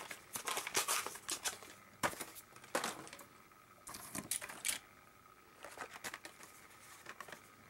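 Light clicks and small clatters of a die-cast Hot Wheels toy car being handled, turned over and set down on a hard surface.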